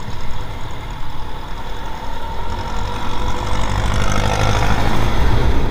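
Yamaha NMAX 155 scooter engine pulling as the scooter speeds up through traffic. Wind rumbles on the helmet-mounted microphone, and the sound grows a little louder toward the end.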